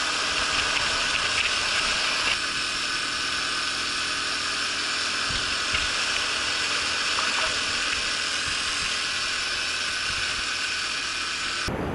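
Honda Super Cub's single-cylinder four-stroke engine running at a steady cruise on the move, a steady high-pitched whine. It cuts off abruptly right at the end.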